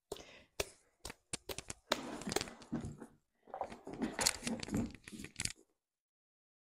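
Crinkling of the plastic wrap around fufu balls as they are picked up and squeezed. A few scattered sharp clicks come first, then two denser runs of crackling.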